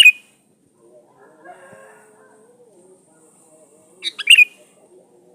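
Sooty-headed bulbul singing: two short, loud song phrases of quick, bright notes, one right at the start and another about four seconds in.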